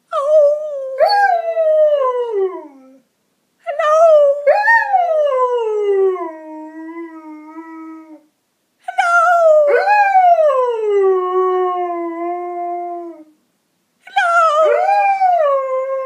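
Dog howling: four long howls with short pauses between them, each rising briefly in pitch and then sliding down and trailing off.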